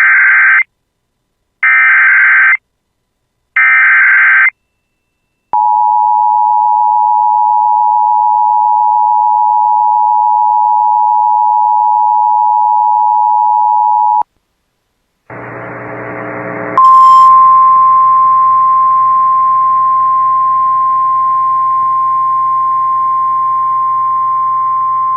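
Emergency Alert System header: three short screeching data bursts, then the two-tone attention signal held for about nine seconds. After a pause there is a short buzz and a click, then a steady single-pitch weather-radio alert tone over hiss.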